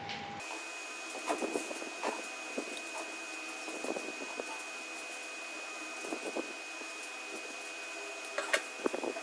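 Scattered light taps and clicks of small hard objects being handled, over a steady hiss with a faint steady high tone.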